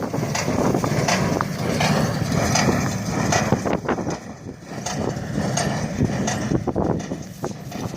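Matterhorn 55 baler working: a low machinery rumble with irregular knocks and clatter from the baling mechanism.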